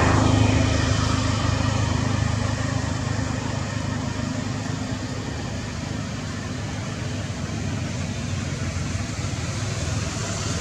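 Steady low rumble with a hiss, like distant motor traffic or an engine running. It swells a little at the start, then holds steady.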